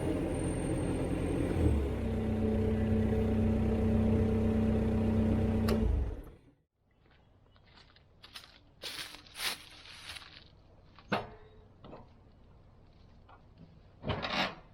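Cat 226B skid steer's diesel engine running steadily, its pitch shifting about two seconds in. It cuts off abruptly about six seconds in, leaving quiet with a few scattered light clicks and knocks.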